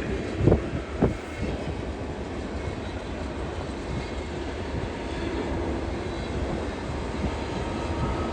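Freight train rolling past, a steady rumble of its cars on the rails, with two short knocks about half a second and a second in.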